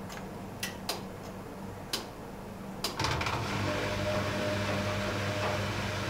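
Arçelik 5900E (Bauknecht-built) front-loading washing machine working to balance a single wet bath towel before spinning: the drum turns with a low motor hum and a few sharp clicks, then about three seconds in the motor steps up and the drum speeds up, running louder with a steady whine.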